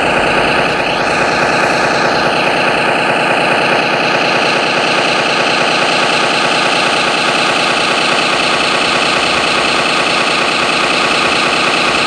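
Simulated engine idle from the RC snowcat's electronic sound kit, a steady idling rumble with an even firing beat, played through the model's small onboard speaker.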